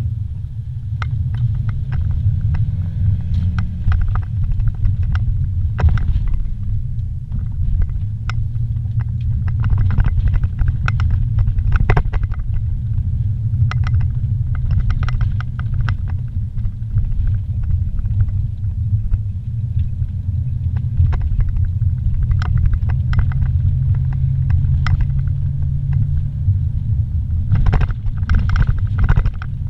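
Car interior noise while driving: a steady low rumble from the engine and tyres on pavement, with frequent small clicks and knocks, a cluster of them near the end.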